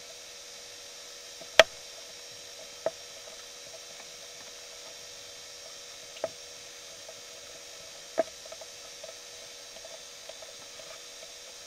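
Dive gear being handled and fastened: a few sharp clicks and clacks, the loudest about one and a half seconds in, over a steady faint hum.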